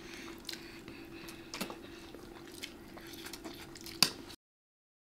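Spoons and a fork clicking and scraping on a shared plate of rice and vegetables as children eat, over a steady low hum. The loudest clink comes about four seconds in, and the sound then cuts off abruptly.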